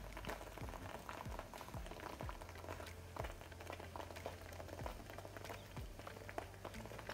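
Thick ketchup-based ginger sauce simmering in a pan: bubbles plopping and popping at an irregular pace over a low steady hum.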